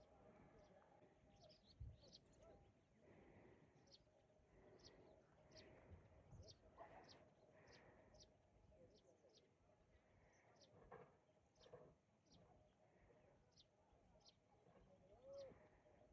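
Faint bird chirping: a steady series of short, high, falling call notes, a little more than one a second.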